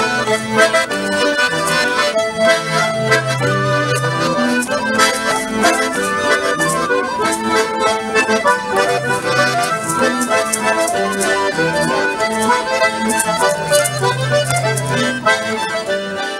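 An ensemble of diatonic button accordions playing a lively tune together, with a melody line over held bass notes.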